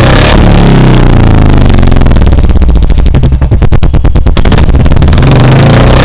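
Royal Enfield Bullet 350's single-cylinder engine revved through a short black Mini Punjab aftermarket silencer. The revs fall back to separate idle thumps around the middle, then the throttle is blipped again near the end. Loud throughout.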